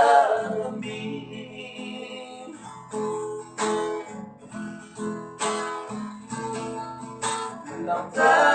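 Acoustic guitar playing an instrumental passage of strummed chords and plucked notes between sung verses, with the vocals ending just after the start and returning near the end.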